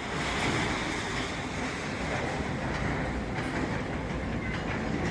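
A section of building collapsing under demolition: a steady rumble with the clatter of falling rubble and debris.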